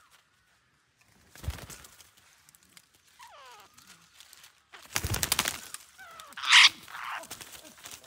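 Parakeets arriving on tree branches: a dull knock, then a loud burst of wing flapping and rattling twigs in the middle, and harsh screeching calls with falling pitch. The loudest is a short, piercing shriek near the end.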